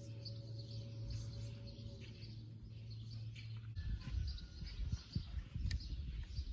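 Small birds chirping repeatedly in the background, over a low steady hum that cuts off a little past halfway, followed by irregular low knocks and rumbles.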